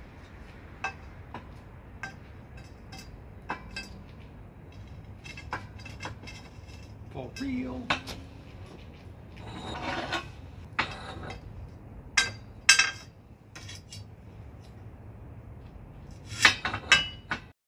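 Scattered metal clinks and knocks, with a short scrape about ten seconds in, as steel press plates and a length of EMT conduit are handled and set in a benchtop hydraulic shop press. The sharpest knocks come in a cluster near the end.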